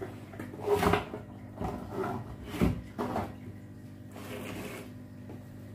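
Large clear plastic water jugs being handled and shifted on a wooden table: a series of irregular hollow knocks and rubs, over a faint steady hum.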